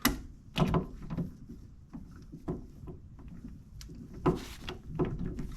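Irregular metallic clicks and knocks from a torque wrench and socket tightening the rear wheel hub bolts to 66 foot-pounds, one bolt at a time. There are a handful of sharp strikes, loudest near the start and again about four to five seconds in.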